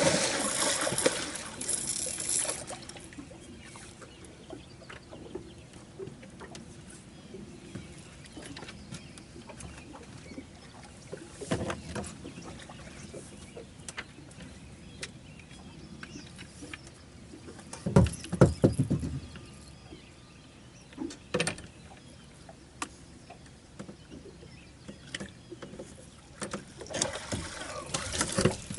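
Knocks and thumps in a small fishing boat as a catfish is handled, with a noisy splash-like stretch at the start and a cluster of heavy thumps about two-thirds of the way through.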